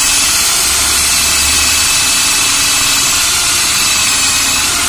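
12 V cordless drill running in its higher gear with a step drill bit pressed against a thin iron plate: a loud, steady grinding whir. The bit is blunt and makes little headway into the metal.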